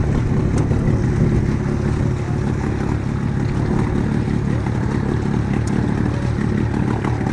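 Boat engine running steadily with a continuous low rumble.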